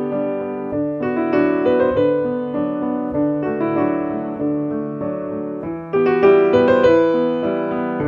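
Background piano music: notes struck and left to fade, with a louder passage starting about six seconds in.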